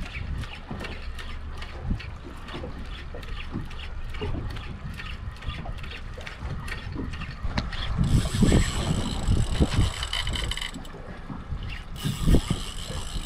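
Large spinning reel clicking evenly, about four clicks a second, as a jig is cranked and worked. About eight seconds in, a fish takes and the reel's drag gives out line with a steady high whine; the whine breaks off briefly and starts again near the end.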